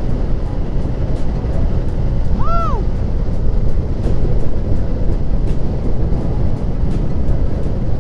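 Steady low wind and road rumble of a motorcycle ride, recorded on a helmet-mounted setup, with faint regular clicks throughout. A short chirp that rises and falls in pitch comes about two and a half seconds in.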